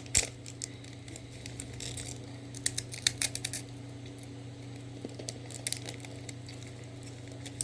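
Crunching and chewing of a crunchy soy sauce rice cracker (senbei), heard as clusters of sharp crackles with short pauses between bites.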